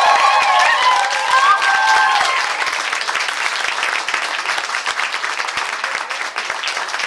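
Audience applauding a dance performance, with a few sustained high calls over the first couple of seconds.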